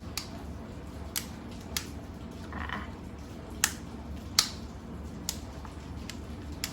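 Sharp plastic clicks, about seven at uneven intervals, as the Vega 3-in-1 hair styler's mode button and clip are pressed and moved to switch it from straightener to curler.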